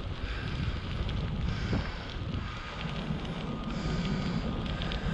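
Wind buffeting the microphone during a bicycle ride, a gusty low rumble.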